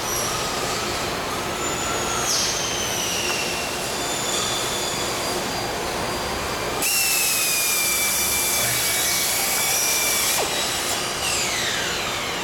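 Power drill driving a screw into the vinyl frame of a multi-unit replacement window at its mull joint. It runs with a steady whine for about three and a half seconds in the middle, the pitch sagging slightly under load, and has shorter bursts about two seconds in and near the end.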